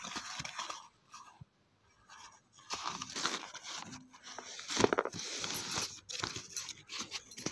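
A parcel being opened by hand: its paper and cardboard packaging torn and crinkled in irregular bursts of rustling. There is a brief pause about a second in, and a sharp, louder rip near the middle.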